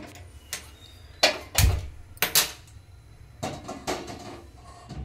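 Metal cooking pot being handled and set down on a gas stove: a series of sharp metallic knocks and clinks, about seven in five seconds, with a heavier thud about a second and a half in.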